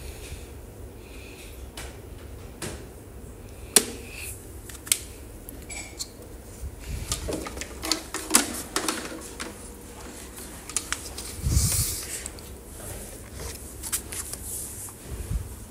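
Scattered sharp plastic clicks and knocks with rustling as hands plug together cable connectors and handle plastic LED flood light housings; the loudest clicks come about four, five and eight seconds in, with a low dull bump near twelve seconds.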